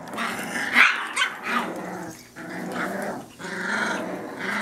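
Several Soft Coated Wheaten Terrier puppies growling at play as they wrestle, with a few short barks mixed in.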